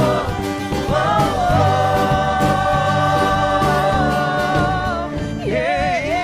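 Christian worship music: a singer holds a long sustained note with vibrato over a band and choir, a new sung phrase starting near the end.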